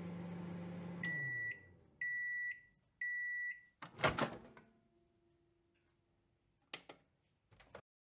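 Microwave oven running with a steady hum that winds down about a second in, then three high beeps a second apart marking the end of the cook time. A loud clunk of the door latch popping open follows, with a couple of faint clicks near the end.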